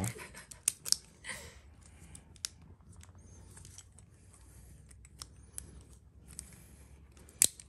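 Small plastic clicks as Beyblade Burst top parts are handled and fitted together, with a brief rustle about a second in and one sharper click near the end.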